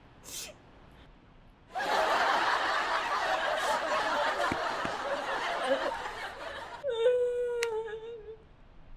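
A woman crying: a few sniffles, then loud breathy sobbing for about five seconds, ending in a thin, high, steady whimper.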